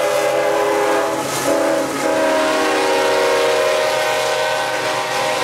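Horn of a CSX GE ES44AH diesel locomotive sounding a steady multi-note chord as the train passes close by, its pitch shifting about a second and a half in as the locomotive goes past, over the running noise of the train.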